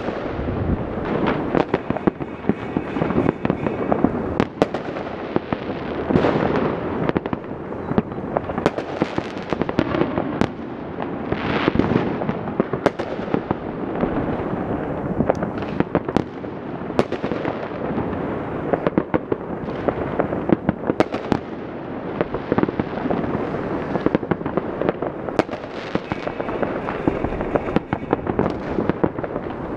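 Many fireworks and firecrackers going off at once across a city: a dense, unbroken barrage of bangs and crackling, with sharp reports every second or so over a steady rumble.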